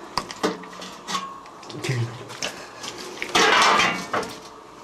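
Scattered clinks and knocks of hard objects, then a loud rushing or scraping noise lasting about a second, starting about three and a half seconds in.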